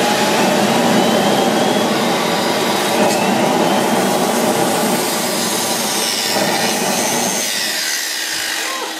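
Homemade LPG-fired jet turbine built from a vacuum-cleaner motor, running with gas burning in its combustor: a steady, loud rush with a faint whine. It eases off a little around seven and a half seconds in.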